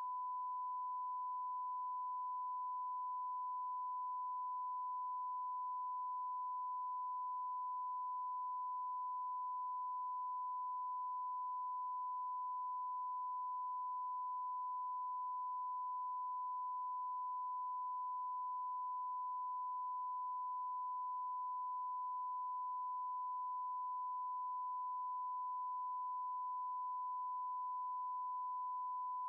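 A continuous electronic test tone: a single pure, unwavering pitch in the middle-high range, held at one level without a break.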